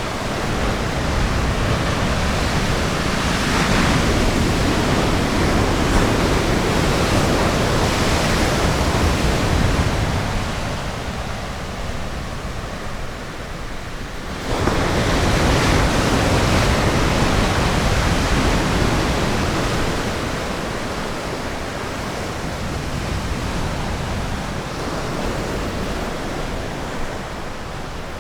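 Ocean surf washing onto a beach: a steady rush of waves that swells, eases off, then surges again suddenly about halfway through.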